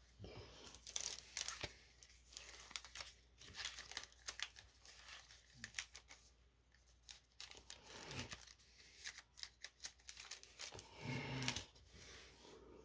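Pokémon trading cards being slid off a stack one at a time in the hands: a quiet, irregular run of papery scrapes and flicks.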